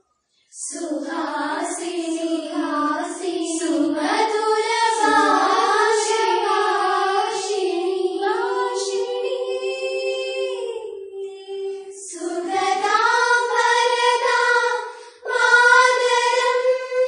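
A group of schoolgirls singing a patriotic song together as one melody, with long held notes. The singing starts about half a second in and breaks briefly near the end before a held note.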